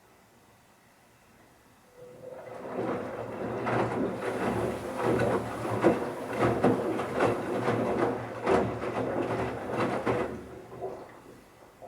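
Bauknecht Super Eco 7615 washing machine's motor turning the drum in a wash phase, with wet towels tumbling and thudding irregularly. It starts about two seconds in, runs for about eight seconds, then stops.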